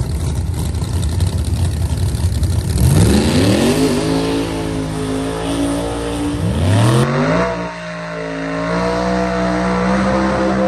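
Drag-race car engine rumbling low, then revving up and held at high revs, dropping and revving up again and holding near the end: a burnout, the rear tires spinning and smoking.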